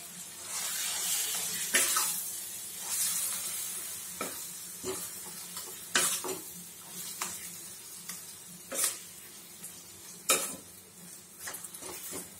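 Minced chicken sizzling as it fries in onion-tomato masala in a stainless steel kadai, stirred with a metal spatula that scrapes the pan and knocks against it four or five times. The sizzle is strongest in the first few seconds.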